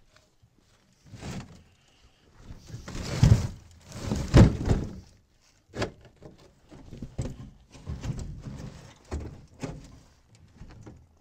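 Maple firewood logs being handled in a metal utility trailer: two loud, drawn-out thuds and scrapes a few seconds in, then a string of lighter knocks as logs bump against the trailer bed and each other.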